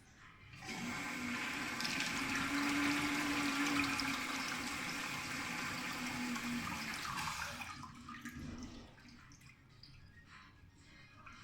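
LIXIL/INAX AWU-802AM sensor-integrated urinal flushing for about seven seconds, water rushing through the bowl, with a steady low tone running under the flush. That tone is the odd noise this unit makes, the sign of something not quite right in its flush valve.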